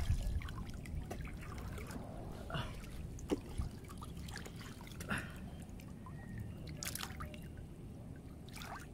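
River water trickling and dripping, with a few light splashes, as a wading spearfisher moves his hands through the water beside a small boat.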